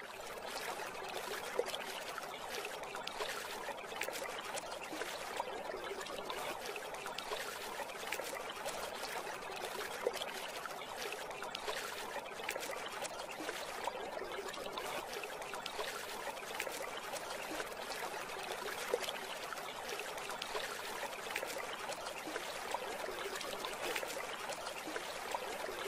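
Shallow water trickling and washing over wet sand at the shoreline: a steady, even fizzing wash with an occasional faint tap.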